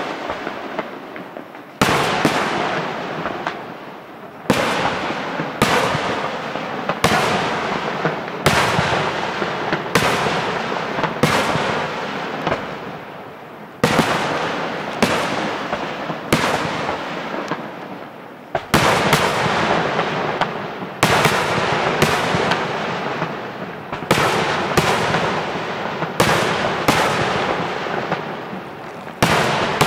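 Aerial firework shells bursting in rapid succession, a sharp bang roughly every second. Each bang fades into a lingering noise that never dies out before the next one.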